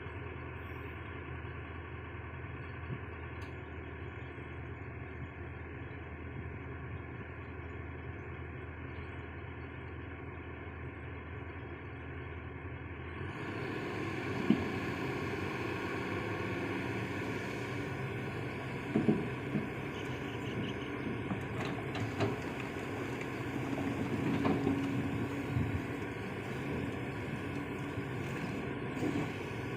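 Long-reach excavator's engine running steadily, with a few short knocks and clanks in the second half.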